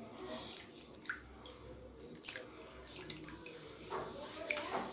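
A hand swishing and rubbing roasted moong dal in a plastic bowl of water: faint, irregular small splashes and drips as the dal is rinsed.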